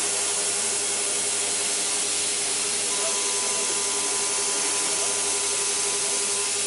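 CNC vertical machining centre milling an aluminium block with a small end mill: a steady cutting hiss over a constant spindle tone, with a second, higher tone joining about three seconds in.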